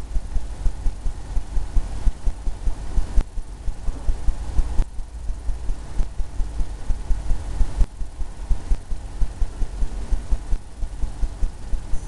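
A paintbrush dabbing and stroking on a stretched canvas on an easel makes irregular low thumps, several a second, over a steady low rumble.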